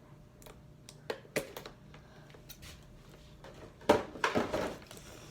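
Hands working at the tape and packaging of a boxed action figure: scattered light clicks and taps, then a louder burst of crackling and rustling about four seconds in.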